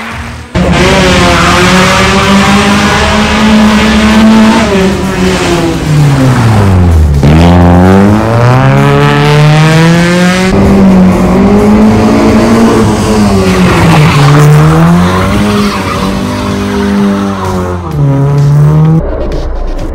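Rally car engine held at high revs while the tyres spin and squeal in a smoky burnout. The revs fall steeply about seven seconds in, climb again and swing up and down, then drop away shortly before the end.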